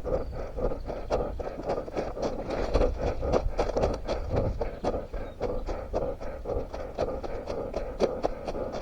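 A runner's footsteps on forest ground, about three or four irregular footfalls a second, with scraping and rustling of undergrowth and leaf litter, heard from a head-mounted camera.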